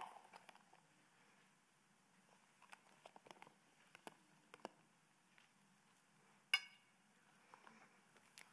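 Mostly near silence, broken by faint clicks and scrapes of a metal spoon against a plastic container as diced tomato is spooned out onto a plate, with one louder clink a little after six seconds in.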